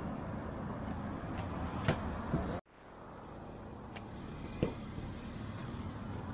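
Roadside street ambience with steady traffic noise and a few light knocks. The sound cuts out abruptly partway through, then fades back in.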